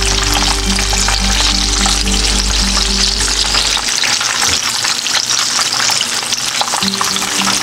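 Cornflake-coated chicken drumsticks frying in a skillet of hot oil: a dense, steady crackling sizzle. Background music with a repeated low note plays underneath.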